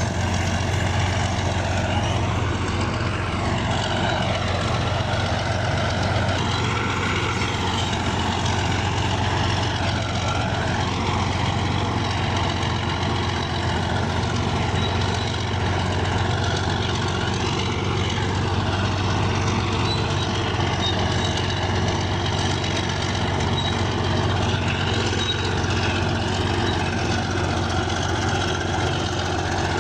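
Bulldozer's diesel engine running steadily, with a fainter higher whine that rises and falls.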